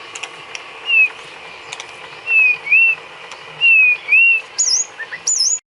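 White-rumped shama (murai batu) singing clear whistled notes: a falling slur followed by a rising-and-falling note, given twice, then a couple of higher, sharper notes before the sound cuts off suddenly. A faint steady hum and a few light clicks sit underneath.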